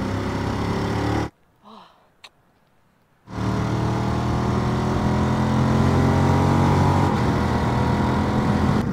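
Motorcycle engine running steadily under way, with wind noise over it. The sound cuts out almost completely for about two seconds shortly after the start, then the engine comes back.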